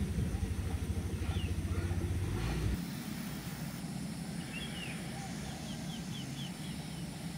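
A low rumbling noise cuts off suddenly about two and a half seconds in, leaving a quiet steady outdoor background with small birds chirping. The chirps are short and high, with a quick run of about five near the end.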